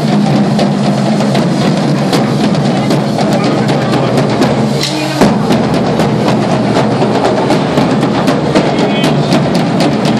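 Hand-held parade drums beaten in a fast, dense rhythm. A low steady hum underneath cuts off about five seconds in.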